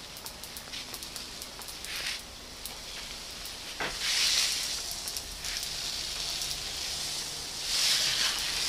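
Water being sprayed onto dry grapevine and the ground: a steady hiss with small pattering clicks of drops, swelling louder about four seconds in and again near the end.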